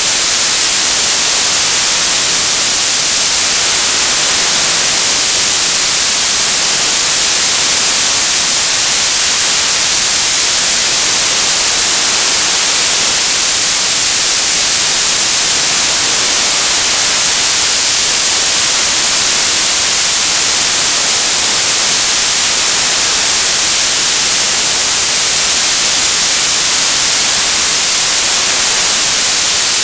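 Television static: a loud, steady hiss with no change throughout, strongest in the high frequencies.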